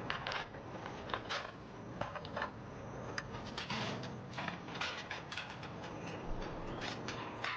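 Irregular light clicks, taps and rustling of objects being handled, over a faint steady background hiss.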